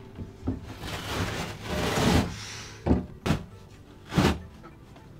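Old carpet being ripped off the inside of a fibreglass boat hull and handled: a longer tearing, rasping noise that builds for about a second, then three short, sharp rips.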